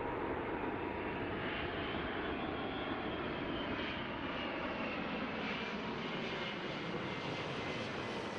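Airliner jet engine noise: a steady, even rush with faint high whining tones.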